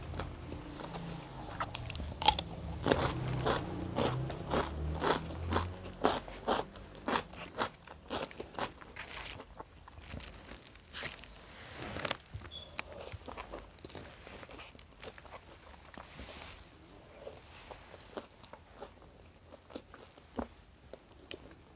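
Close-up chewing of crispy fried chicken: rapid crunches of the fried coating, dense through the first half and thinning out toward the end.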